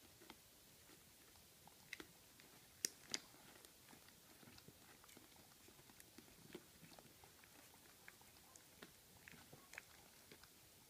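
Faint scattered smacks and small clicks of young puppies nursing and crawling about on a bedding sheet, with two sharper clicks about three seconds in.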